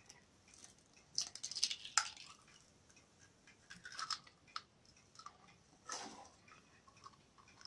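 Eggs being cracked into a bowl of cottage cheese: a few faint, scattered taps and crackles of the shells breaking and being pulled apart, with soft wet squishes as the eggs drop in.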